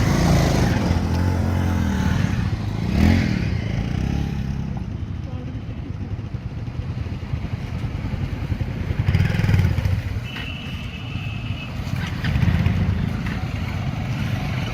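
Royal Enfield Himalayan 450 motorcycle engine running at low revs, the revs swelling a few times. A brief high steady tone sounds about ten seconds in.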